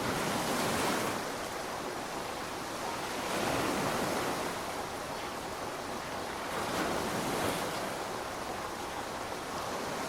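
Steady heavy rain hiss that swells louder three times, like gusts of heavier downpour.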